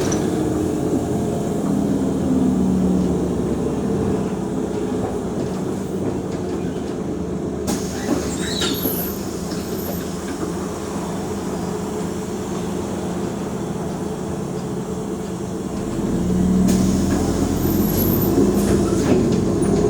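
Mercedes-Benz O345 Conecto G articulated bus running: a steady diesel and driveline rumble with rattles, with a few faint high squeaks. The engine note gets louder about three-quarters of the way in, as the bus pulls harder.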